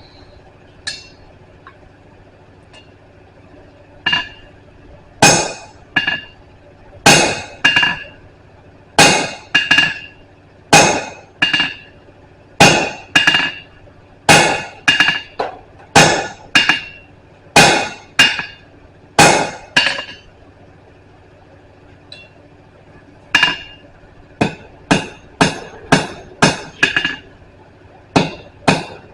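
Blacksmith's hammer striking hot steel on an anvil while forging a chisel-style flatter, each blow ringing. Steady blows about one a second, a pause of a few seconds, then a quicker run of lighter blows near the end.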